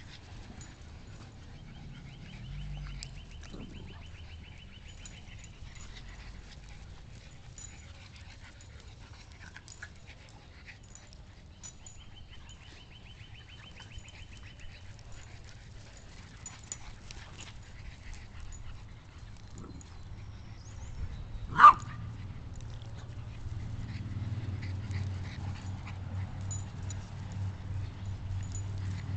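Several small dogs playing and chasing each other on a lawn, mostly quiet, with one short, sharp yip about three quarters of the way through.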